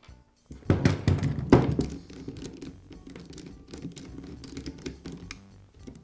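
Tool handling on a pneumatic nailer: a screwdriver and the nail gun's magazine knocking and clicking against the gun and the workbench as the magazine is unscrewed and removed. A couple of louder knocks about a second in, then a run of small clicks.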